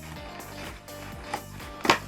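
Background music with steady held notes, with a light click partway through and a sharper, louder click near the end.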